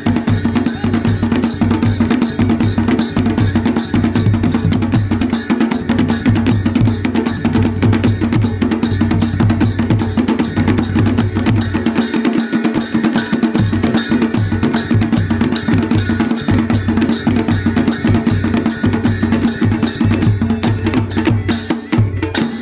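Nepali panche baja folk band playing chaliya dance music: drums beating a driving rhythm under clashing cymbals, with a reed pipe holding a steady tone. The low drum drops out for about a second midway.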